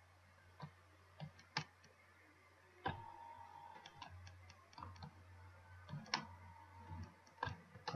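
Faint, irregular computer mouse clicks: a dozen or so sharp ticks spaced unevenly, over a low steady hum.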